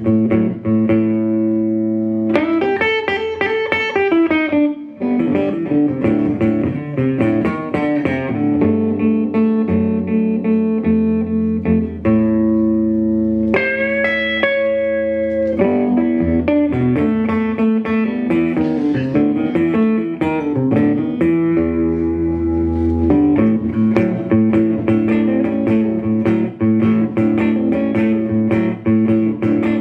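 Wood-bodied resonator guitar played fingerstyle in a blues instrumental. It picks a melody over a repeated low note, with some notes gliding in pitch.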